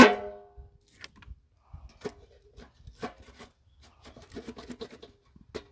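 Split firewood pieces going into a sheet-metal bagging-station barrel: one loud clang with a metallic ring at the start, then scattered knocks and clunks of wood against wood and the barrel's metal wall, with a quicker run of them about four seconds in.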